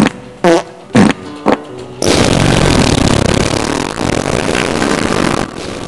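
Comic fart sound effects: four short blasts about half a second apart. At two seconds a loud rocket-like rushing blast takes over, lasting about three and a half seconds, as the fart gas launches the hero into the sky.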